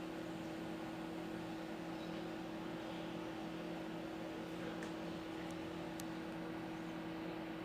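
Ravena Champion ceiling fan running: a steady motor hum over an even rush of air.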